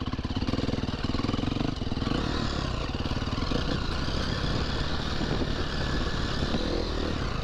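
Dirt bike engine running under throttle as it is ridden along a motocross track, the revs rising and falling.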